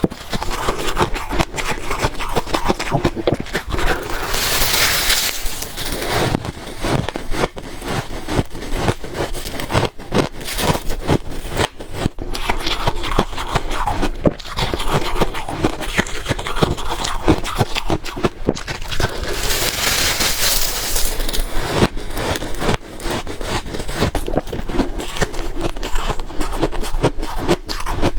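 A person biting and chewing freezer ice close to the microphone: a dense, irregular run of sharp crunches and cracks, with two longer hissing stretches, about four seconds in and again about twenty seconds in.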